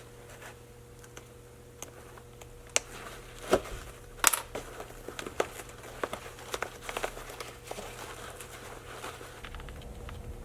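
Nylon backpack fabric and zipper being handled and worked by hand: irregular crinkling and rustling with scattered small clicks, the loudest about four seconds in.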